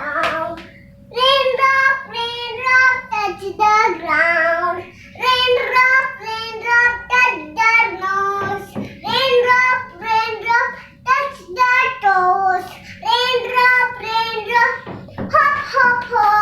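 A young child singing a short rhyme in a high, sing-song voice, in short phrases separated by brief pauses, with no instruments.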